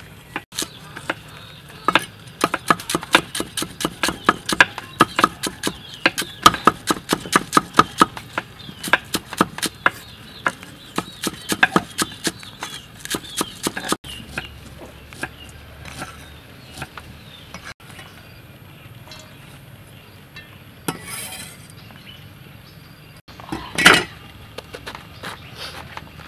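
Kitchen knives chopping fast on wooden chopping blocks, about four quick strikes a second for some twelve seconds. Then sparser, quieter sounds and one loud short knock near the end.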